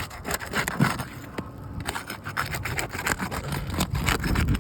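Asphalt roof shingles being pried apart to break their sealant strips: irregular crackling, scraping and rubbing as the bonded tabs tear loose, with one sharper crack about a second in.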